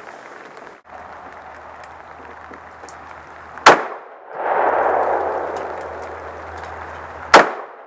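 Two pistol shots about three and a half seconds apart, each a sharp crack. The first is followed by a couple of seconds of rushing noise.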